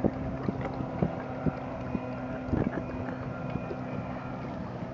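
Motorboat engine running at a steady speed, with wind buffeting the microphone and a few sharp knocks through it.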